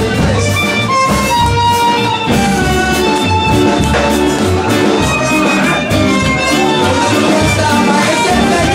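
Live band playing an instrumental passage of a porro chocoano: a bowed-string melody and guitar over bass and drum kit, with a steady rhythmic bass pulse.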